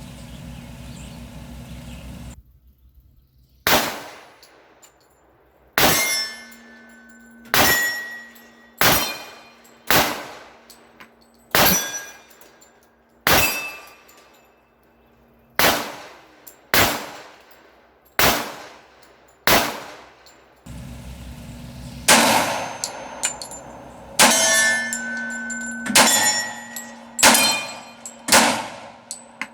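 Glock 21 pistol firing .45 ACP reloads: a string of eleven shots about a second or two apart, a pause, then five more. Several shots are followed by the ringing clang of a bullet striking a steel target.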